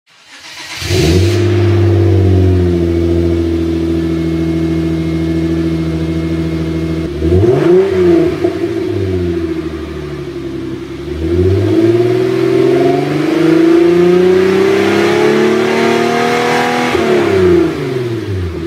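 Hyundai Genesis 3.8-litre V6 through an Injen exhaust system (part SES1390TT) starting up about a second in and settling to idle. It is blipped once around the middle, then revved up slowly and held high for several seconds before dropping back to idle near the end.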